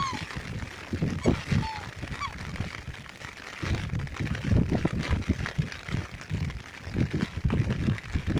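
Wind gusting and buffeting the microphone in rain. A few short, soft whistling calls from black swans come through it in the first couple of seconds.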